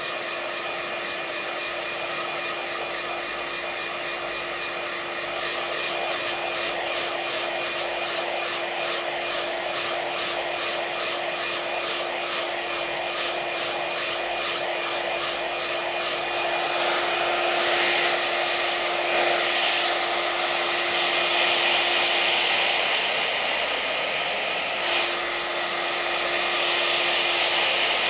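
iTeraCare handheld terahertz wand running, its built-in fan whirring steadily with a constant hum. The whir grows louder and brighter about two-thirds of the way through.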